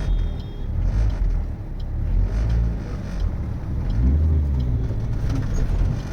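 Maruti Suzuki Swift petrol car being driven: a steady low engine and road rumble, with the engine note rising about four seconds in as it picks up speed.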